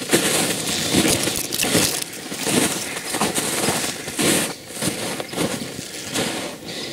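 Footsteps crunching in snow, a steady walking pace of roughly one step every second or less.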